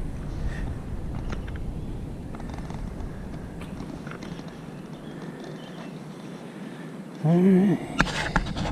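A single deep, pitched call about half a second long near the end, rising then falling, over steady outdoor background noise, with a sharp click just after it.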